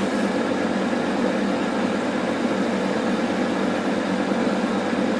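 Monzana hot-air fryer running at 200 °C, its fan blowing hot air with a steady, even hum and a faint tone in it.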